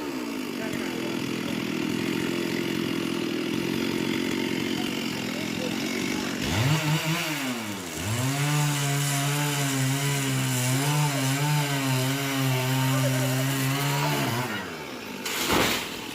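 Two-stroke chainsaw running, cutting a coconut tree trunk. About six seconds in its pitch rises and falls as it is revved, then it holds at high revs under load for about six seconds before dropping back, with a short loud burst near the end.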